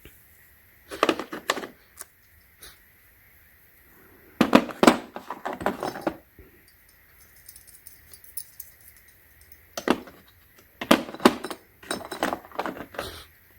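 Small steel pieces of a tap and die set clinking and rattling as they are handled, in three spells of sharp clicks and clatter.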